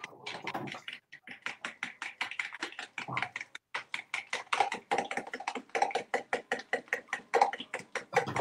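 Rapid, even clicking of a utensil beating against the side of a bowl as something is mixed by hand, about seven strikes a second.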